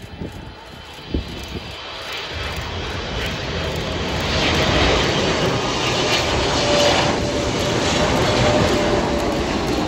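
Boeing 777-300ER's GE90 jet engines on landing approach. The roar builds from about two seconds in as the airliner passes low over the runway, with a steady whine that drops slightly in pitch near the end.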